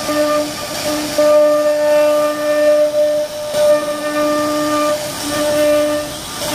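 CNC router carving a wooden door panel: a steady machine whine with overtones over a hiss of cutting, dropping out and coming back every second or so as the machine moves.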